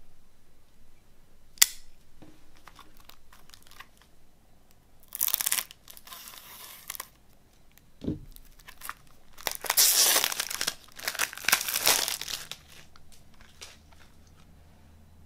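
Plastic shrink wrap being torn and peeled off a CD jewel case, with crinkling and tearing in two stretches, the louder one near the end. There is a sharp click a second and a half in, the loudest sound, and a dull knock about eight seconds in.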